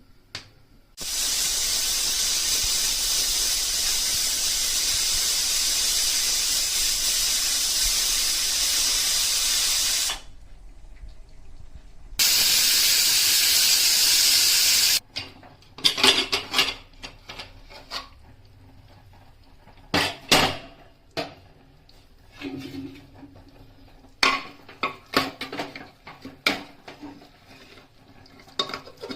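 Kitchen cooking sounds: a loud, steady hiss that starts and stops suddenly and lasts about nine seconds, then a brighter hiss of about three seconds, followed by scattered clinks and knocks of utensils and cookware.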